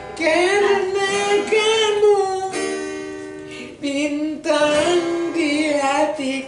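Acoustic guitar played with a singing voice over it: a slow song with long, wavering held notes.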